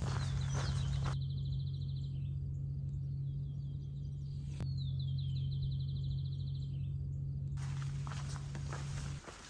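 A songbird sings twice, about four seconds apart: each phrase is a few slurred descending notes running into a fast trill. A steady low hum lies under it, and there is a single sharp click about halfway through.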